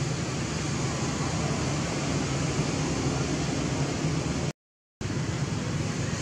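Steady hiss over a low hum. It cuts out completely for about half a second near the end, then resumes unchanged.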